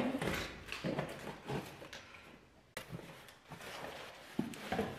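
Scattered handling sounds as kitchenware is unpacked from its box: packaging rustling and light knocks, with one sharp click about three seconds in.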